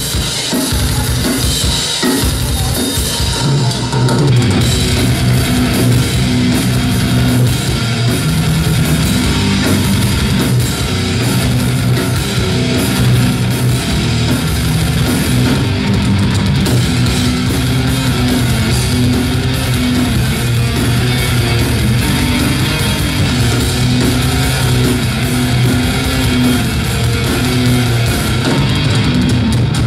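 Live heavy metal band playing: drums and distorted electric guitars, the full band coming in about four seconds in.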